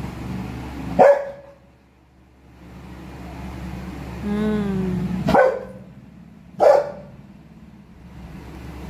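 A leashed Labrador barking to be let loose: three short, sharp barks, about a second in, about five seconds in and just after, with a drawn-out whine running into the second bark.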